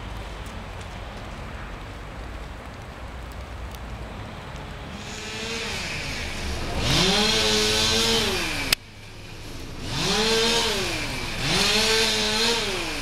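Gas chainsaw revving three times, each rev climbing to a high steady pitch for a second or two and then winding back down, as it cuts storm-downed tree limbs. A sharp click midway, with the sound cutting out briefly; low steady outdoor rumble before the first rev.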